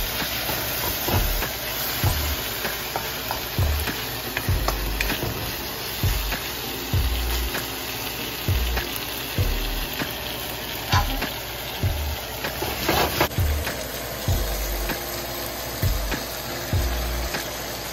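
Sliced onions, red bell pepper and tomato sizzling in a hot wok, stirred and scraped with a wooden spatula, with a low beat of background music underneath.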